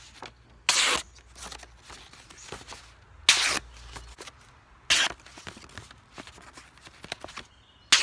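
Zero Tolerance 0460 folding knife slicing through paper: short crisp slitting strokes about a second in, at about three seconds, at five seconds and once more at the very end. The clean cuts show that the blade is still sharp.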